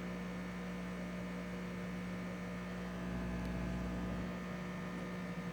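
Steady electrical hum, one low tone with fainter overtones, holding even throughout.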